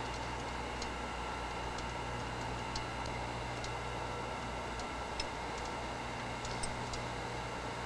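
Steady low hum and hiss with a few faint, light clicks scattered through, about a second or more apart.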